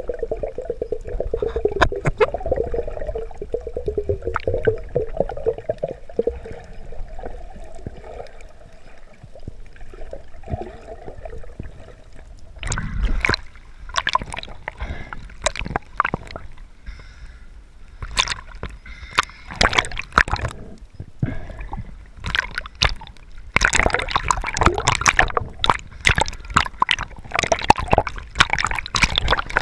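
Muffled underwater gurgling around a submerged camera, then from about twelve seconds in, water sloshing and splashing against it as it breaks the surface again and again while snorkeling.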